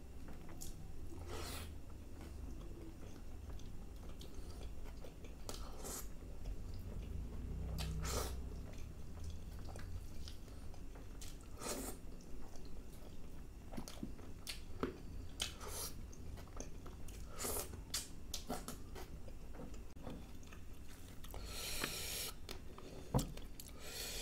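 Close-miked chewing and wet mouth smacks of a person eating saucy chicken masala curry, with short clicks scattered throughout. Near the end there is a brief rustling burst as naan bread is torn.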